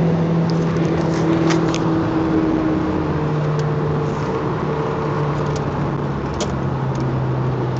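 Audi TT 1.8 quattro's turbocharged four-cylinder engine running at speed, heard from inside the cabin over steady tyre and wind noise. The engine note drops slowly lower.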